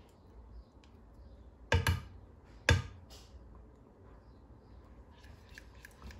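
Silicone spatula scraping egg yolk out of a glass bowl into a saucepan. There are two sharp knocks about a second apart, the first a quick double.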